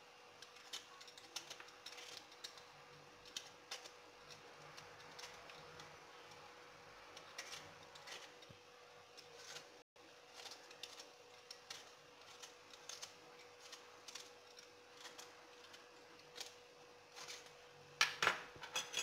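A hand-held vegetable peeler scrapes and shaves the tough outer skin off an artichoke, making quiet, irregular small scrapes and clicks. Near the end there is a louder clatter of metal utensils on the cutting board.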